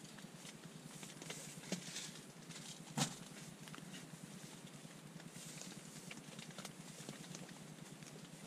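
Steady rain on a tent, with the rustle of hands rummaging through a backpack and a single sharp click about three seconds in.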